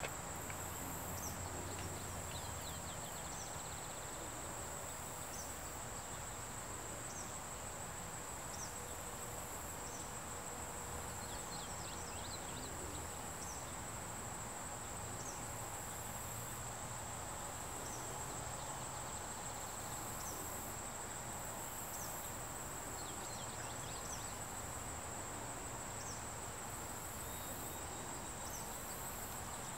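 Steady high-pitched insect chorus, with short chirps repeating every second or two over it.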